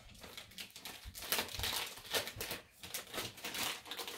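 Wrapping paper crinkling and rustling as a present is unwrapped by hand, in irregular crackly bursts that get busier about a second in.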